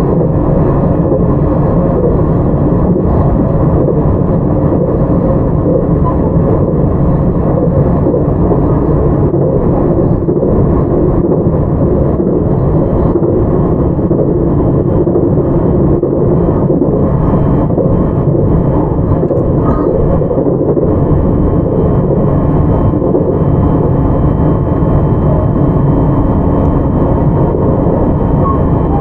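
Running sound of a JR 681 series electric multiple unit, Toshiba GTO-VVVF controlled, heard from inside motor car KuMoHa 681-505: a dense, even rumble of wheels and running gear as the train moves at a steady pace. A faint, high, steady whine comes in about two-thirds of the way through.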